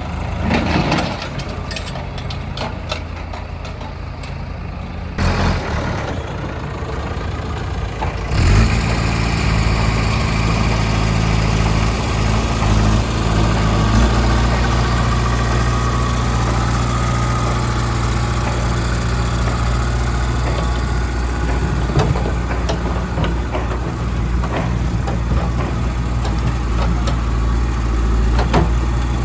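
Heavy diesel engine running, the sound of the tractor and backhoe at work in the mud. It changes abruptly about five seconds in, and from about eight seconds in it holds a louder, steady low note.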